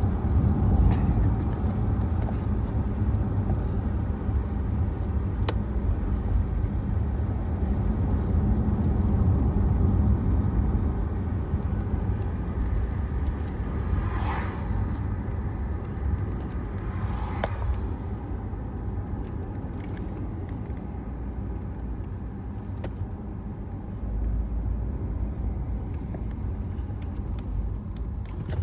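BMW car driving, heard from inside the cabin: a steady low rumble of engine and road noise. About halfway through come two brief higher-pitched sounds, three seconds apart.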